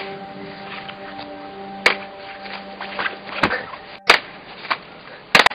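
Toy lightsabers clashing: several sharp clacks spread unevenly, with a quick double strike near the end, over background music holding a steady chord that fades out about four seconds in.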